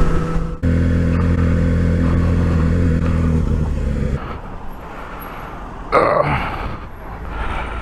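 Sport motorcycle engine holding steady revs under way, then dropping to a quieter run about four seconds in as the bike slows and pulls over, with a brief rush of noise near the end.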